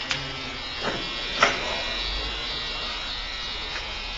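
Steady electric hum of the saw grinder's motor running, with a few light clicks of parts being handled, the sharpest about one and a half seconds in.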